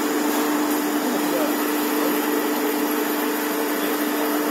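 Colloid mill running steadily as it recirculates a liquid through its return pipe into the steel hopper: a constant motor hum with two held tones over an even hiss.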